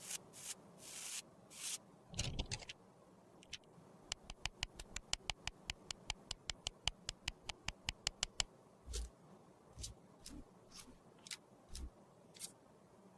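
Close-up handling of makeup and its tools: a few soft scraping strokes, then a quick even run of light clicks or taps, about four or five a second, thinning to scattered single taps near the end.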